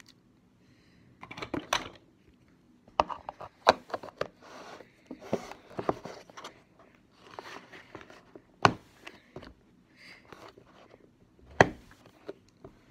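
Plastic slime tub being handled and its lid pried off: a series of sharp plastic clicks and knocks with scraping and rustling between them. The loudest knocks come about two-thirds of the way in and near the end.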